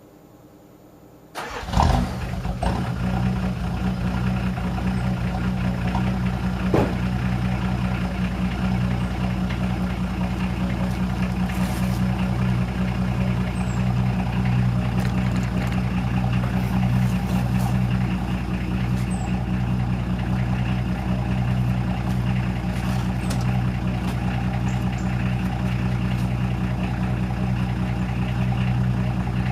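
Straight-six diesel car engine cranking briefly and catching about a second and a half in, then idling steadily.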